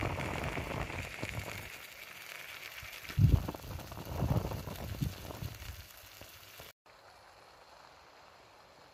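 Ham and onions sizzling in a camping pan over a small flame, with gusts of wind rumbling on the microphone. It cuts off suddenly near the end to a faint steady hiss.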